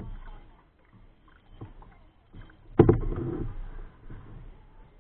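Kayak paddling sounds from a Sun Dolphin plastic kayak: soft paddle strokes and water sounds, with one sharp knock a little after the middle, the loudest sound.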